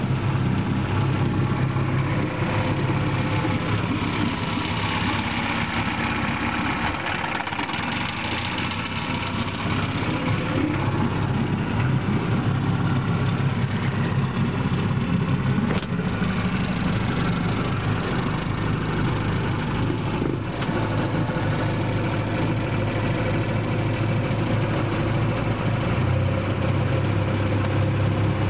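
Johnson outboard motor running steadily at low speed.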